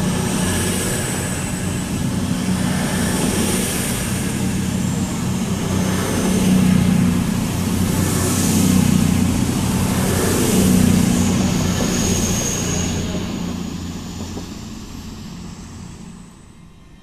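CrossCountry Voyager diesel multiple unit running past along the platform: a steady diesel engine hum under rolling wheel and rail noise, swelling a few times, then fading away in the last few seconds as the train draws off.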